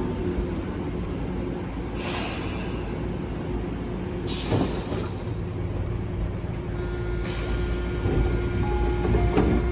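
Tobu 9000-series electric train heard inside the car, with a steady whine from its Toyo Denki armature chopper control and short bursts of air hiss about two and four and a half seconds in. The chopper on car MoHa 9204 sounds lower-pitched than standard, close to a Series 201 chopper, an anomaly the uploader cannot explain.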